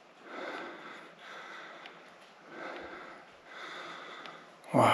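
A man breathing heavily, four breaths about a second apart, with his voice cutting in loudly near the end.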